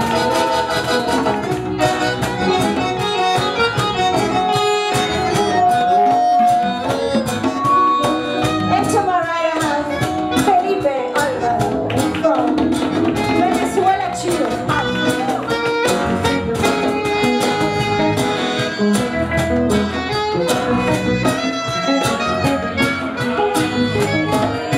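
A live band playing: a saxophone plays melodic lines with some long held notes, over electric guitar and keyboard, with a woman singing into a microphone.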